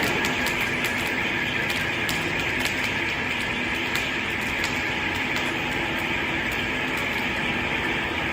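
Automated welding equipment at work: a steady hiss with scattered sharp clicks.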